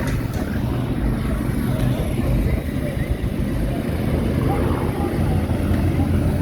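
Steady low rumble of a display aircraft's propeller engine, mixed with wind buffeting the microphone.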